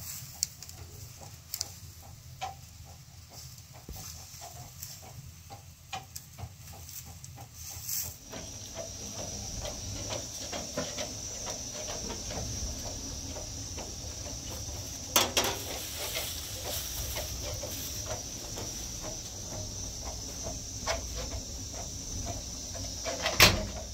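A wooden stick pounding into a plastic bottle, giving scattered knocks. About 8 s in, a steady high-pitched chirring and a low rumble come in under further knocks.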